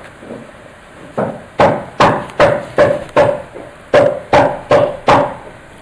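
A series of sharp, loud knocks, like hammer blows, about two and a half a second, starting about a second in with a short break midway. Each knock rings briefly.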